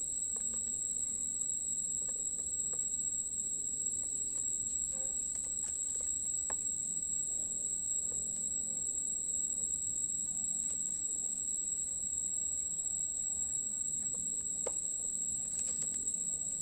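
Steady high-pitched insect chorus, with a few faint scattered clicks of short sugarcane pieces being set into a plastic toy dump truck.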